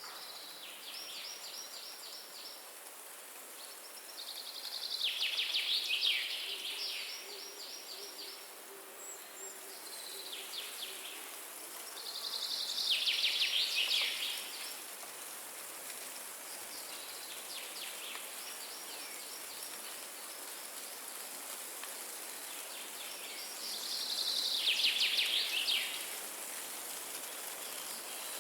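Forest ambience of wind hissing steadily through trees, with a songbird singing a fast, buzzy trill three times, about every ten seconds, and fainter trills from farther birds in between.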